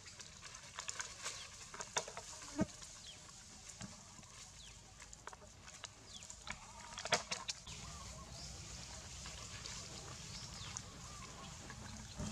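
Long-tailed macaques moving about on dry leaf litter, the leaves crackling in short sharp bursts, with a few brief high calls and two louder knocks, one about two and a half seconds in and one about seven seconds in.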